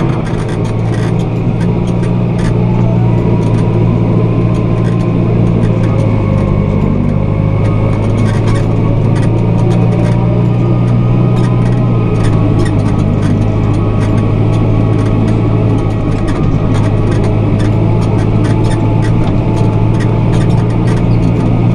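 A heavy vehicle engine running steadily at a constant low pitch, which shifts slightly a couple of times.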